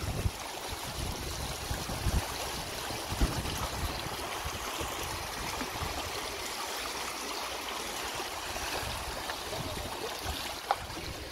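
Floodwater rushing across a road and around wooden fence posts, a steady sound of running water. A few low thumps hit the microphone in the first few seconds.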